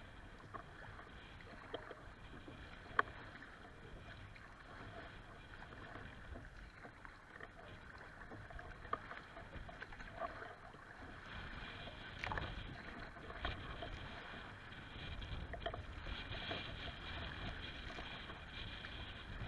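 Choppy lake water slapping and splashing against a kayak's hull as it moves through the waves, with wind buffeting the microphone, stronger in the second half. A few sharp knocks stand out, the loudest about three seconds in.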